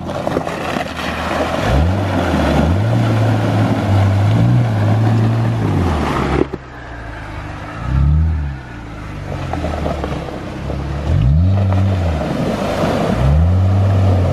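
Jeep Wrangler's engine revving up and falling back several times as it drives off-road through muddy puddles, over a steady rush of tyres and water.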